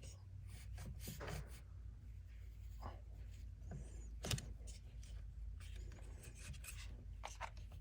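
Faint scraping, rubbing and scattered clicks of a plastic radiator fan shroud being handled and worked out of the engine bay, with one sharper click about four seconds in, over a low steady hum.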